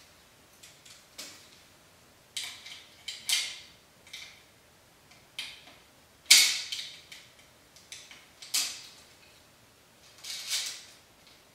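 Metal clicks and clacks of a Harris swivel bipod being handled and mounted on a rifle: about a dozen scattered sharp clicks at uneven intervals, the loudest about six seconds in.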